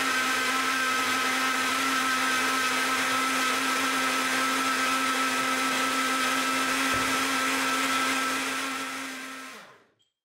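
Mix & Go Cool personal bottle blender running steadily as it blends a fruit smoothie, its motor held on by pressing the bottle down. Near the end the motor winds down, falling in pitch, and stops.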